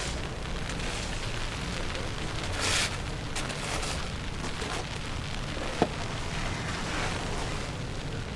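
Steady low rumble of street noise with wind on the microphone. A brief hiss comes about three seconds in, and a single sharp click near the six-second mark.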